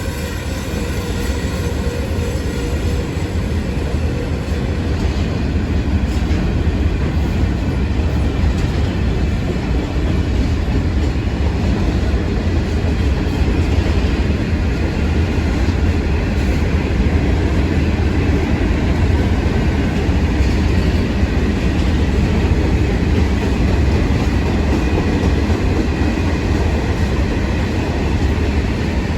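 A train running past at close range: a loud, steady rumble of wheels on rail that builds over the first few seconds and then holds. A faint whine of several tones dies away early on.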